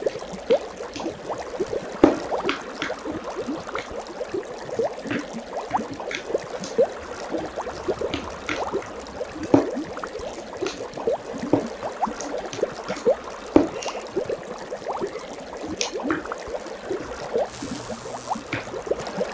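Slime being squished and kneaded by hand in a bowl, a steady run of small, irregular wet clicks and pops.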